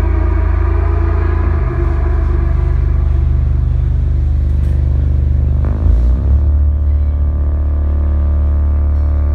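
Live electronic pop band playing an instrumental stretch: a loud, deep bass holds long low notes that change pitch twice, about a second and a half in and about six seconds in, under sustained keyboard chords.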